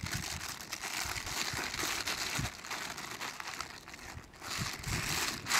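Plastic bag crinkling and rustling as it is handled.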